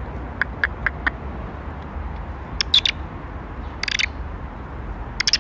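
Short, high chirping animal calls in small groups: four quick chirps in the first second, then clusters about two and a half seconds in, a harsher burst near four seconds, and a last cluster at the end, over a steady low rumble.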